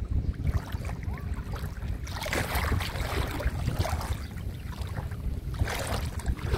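Wind rumbling on the microphone, with two stretches of water splashing as the kayak paddle works the shallow water, the first lasting a couple of seconds about two seconds in, the second shorter near the end.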